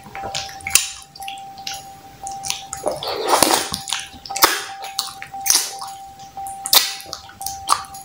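Close-up mouth sounds of a person eating fufu with ogbono and okra soup: chewing and lip smacks heard as a string of irregular clicks. A faint steady tone runs underneath.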